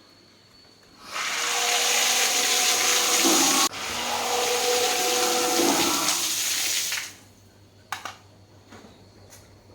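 Loud rushing water, in two stretches with a sudden short break between them, from about a second in to about seven seconds: the repaired 750 W sump pump test-run and pumping water.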